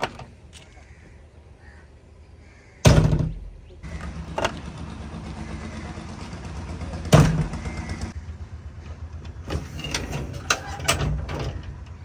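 Cab door of a JCB 3DX backhoe loader being swung and shut: two loud thuds about three and seven seconds in, with smaller knocks and rattles between and after, over a steady low hum.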